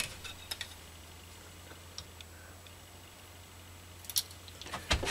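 Light clicks and metallic taps of small hand tools and a metal disc being handled at a bench vice, over a steady low hum. A cluster of sharper taps and clatter comes near the end.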